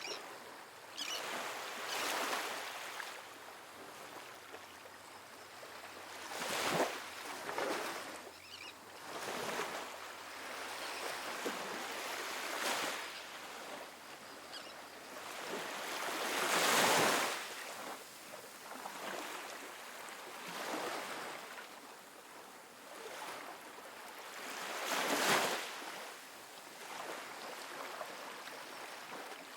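Calm ocean waves breaking and washing onto a sandy beach, rising in uneven surges of surf a few seconds apart over a steady hiss; the loudest surge comes a little past halfway.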